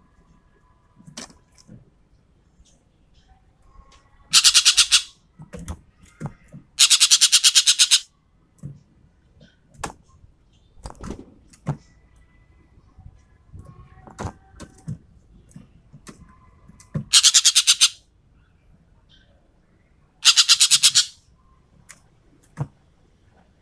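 Sumatran ekek keling (a songbird) calling: four loud rapid-fire rattling bursts, each about a second long, of the kind bird keepers call 'tembakan'. Between the bursts come short clicks and brief chirps.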